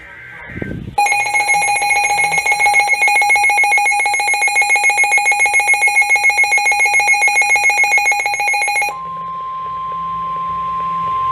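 Emergency alert tones on a weather radio broadcast: a loud, rapidly pulsing, shrill electronic alarm for about eight seconds, followed by the steady single-pitch NOAA Weather Radio warning alarm tone that heralds a warning message.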